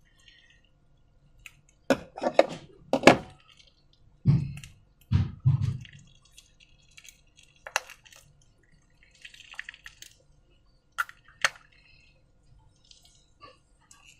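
Slime being squeezed and worked by hand: a series of wet squelches and clicks, bunched between about two and six seconds in, with a few heavier low plops, then a few single sharp clicks later on.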